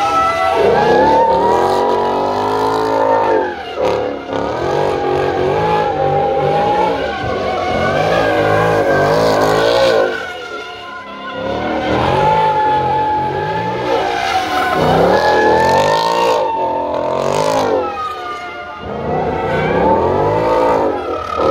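A car doing donuts: the engine revs up and down in repeated waves every few seconds while its tyres squeal steadily. The sound drops off briefly about ten seconds in, then picks up again.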